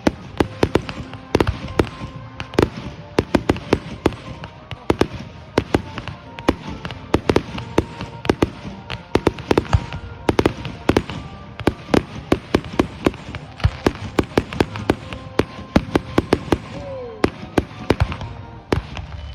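Fireworks display going off in rapid succession: sharp bangs and crackles, several a second throughout, with no let-up.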